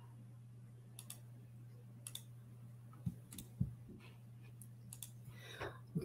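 Faint scattered clicks of someone working a computer while a screen share is set up, a dozen or so over several seconds and closer together near the end, over a steady low hum.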